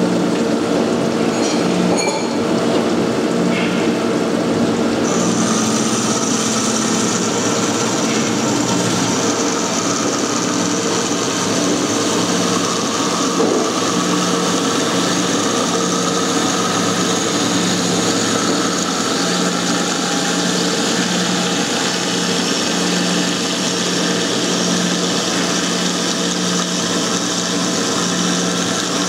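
Metal-cutting band saw cutting through a bundle of steel rebar under flowing coolant: a steady machine hum with a high hiss of the blade in the cut, which grows stronger about five seconds in.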